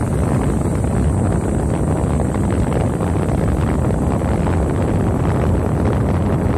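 Steady wind rumble on the microphone of a moving vehicle, with the vehicle's engine running under it.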